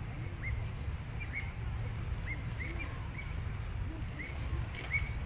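Outdoor ambience: a steady low rumble with a bird calling in short, rising chirps, repeated irregularly every half second to a second.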